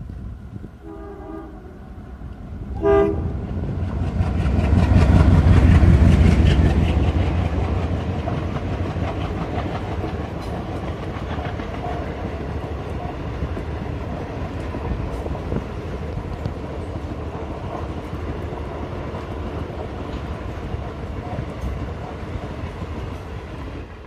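Indian Railways WDP3A ALCo diesel locomotive sounding two short horn blasts, then passing with a heavy low engine rumble that is loudest about five to six seconds in. Its passenger coaches follow with a steady rolling rumble and the clickety-clack of wheels over rail joints.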